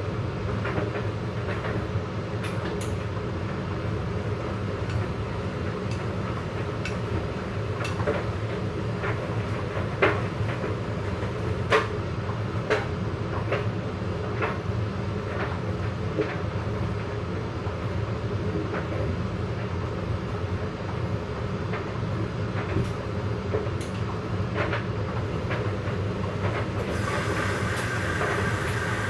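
Hoover and Candy washer-dryers running mid-programme, a steady drum rumble with irregular clicks and knocks from the tumbling load. Near the end a higher steady whine joins in.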